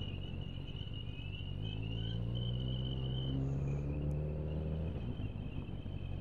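Motorcycle engine running at low speed, rising in pitch from about a second and a half in and easing off near the end. Above it sits a high, slightly wavering whistle, the whistle the riders put down to their Triumph Street Triple.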